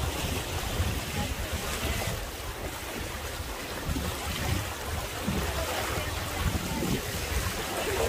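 River rapids rushing past a moving riverboat, with wind buffeting the microphone in a gusty low rumble.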